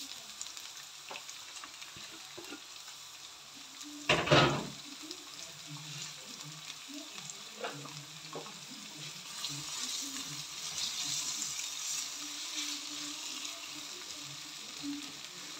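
Sliced onions and coriander stalks sizzling in hot oil in a metal wok, the sizzle growing louder partway through as they are stirred. There is one loud knock about four seconds in and a few lighter clicks.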